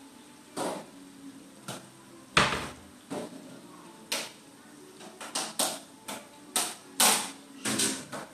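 A string of about a dozen sharp, irregular knocks and clatters, the loudest about two and a half seconds in and again about seven seconds in.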